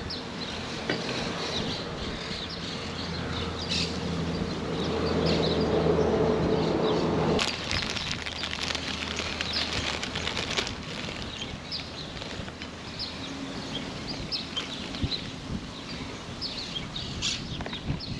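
Small birds chirping repeatedly in short high calls, over a wind-blown outdoor background. A low steady hum builds over the first seven seconds and stops abruptly.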